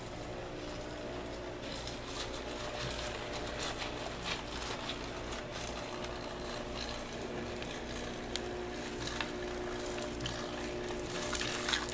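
Steady running water and hum of an aquaponic system, with scattered light clicks and rustling as hands dig a bok choy plant out of a grow bed of clay pebbles; the clicks grow busier near the end.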